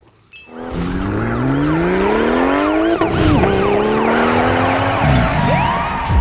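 Electronic music intro: a pitched synth sweep rising steadily for about two seconds, then holding and swooping down and back up, with many short siren-like whoops over it.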